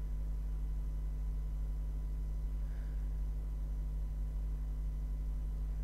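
A steady low hum with faint steady tones above it, unchanging throughout and with nothing else standing out.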